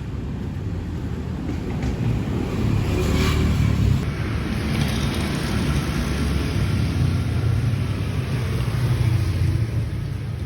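Steady low rumble with a hiss, like vehicle road noise.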